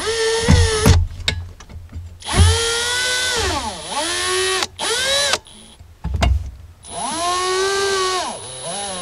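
Cordless drill/driver running screws into a steel console bracket, in several short runs with pauses between. The motor's pitch sags under load and falls away as each screw is cinched down.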